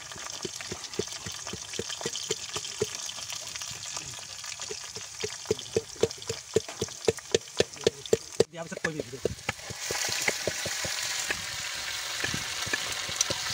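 A wooden pestle knocking in a small metal cup, about two to three blows a second, quicker and louder for the last few seconds before it stops abruptly about eight and a half seconds in. From about ten seconds, a steady sizzle of pieces of duck meat frying in an iron wok as they are stirred.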